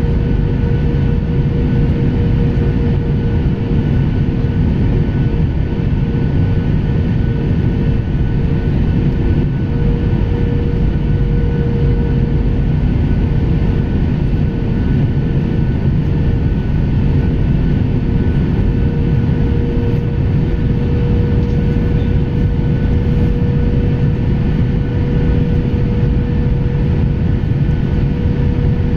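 Cabin noise of a Boeing 737-800 airliner in flight: the steady rush of its jet engines and airflow, with a constant hum running through it. The aircraft is in its descent toward landing.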